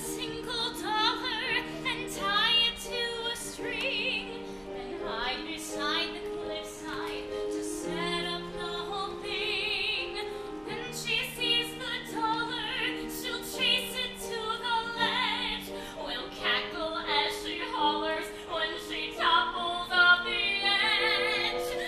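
A stage-musical song: a solo voice singing with vibrato over a steady accompaniment of held chords.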